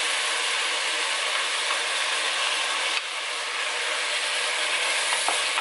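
Chopped vegetables and bacon frying in a pot, a steady sizzle as tomato goes in, with a few knocks of a wooden spoon near the end.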